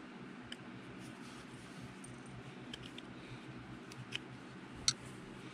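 Screwdriver turning the cover screws on a small McCulloch Mini Mac 310 chainsaw carburetor, giving a few small sharp clicks spread out over a faint steady hum, the loudest click near the end.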